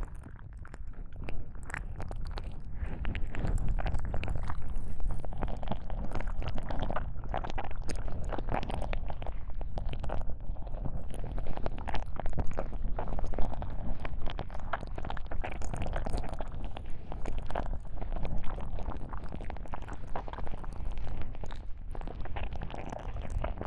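Binaural ASMR ear-cleaning sound effects, a tentacle ear-pick worked in both ears: dense crackling and rubbing right at the ear microphones, over a low rumble.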